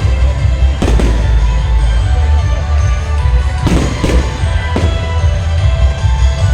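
Fireworks going off, several sharp bangs a second or more apart, over loud music with a heavy bass.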